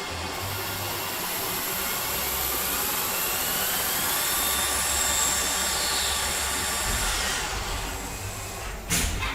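CNC lathe running steadily with a hissing machining noise and a faint high whine that slowly falls in pitch partway through. A sharp knock sounds near the end.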